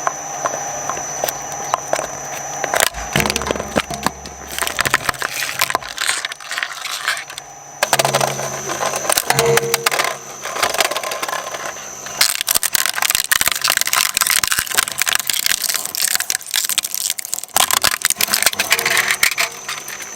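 Shredder running with a steady hum while hard objects crack and crunch between its blades, making dense crackling. The sound changes abruptly several times, as one shredding pass gives way to the next.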